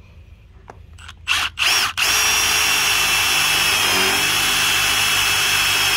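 Milwaukee Fuel cordless driver sinking a self-drilling roofing screw into steel pipe: two short spins a little over a second in, then a steady high whine for about four seconds as the screw drills through the pipe wall.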